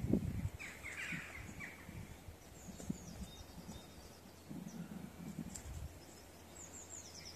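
A spoon softly scraping and tipping potting soil into a small newspaper pot, loudest at the start and again about halfway through. Birds chirp in the background, about a second in and near the end.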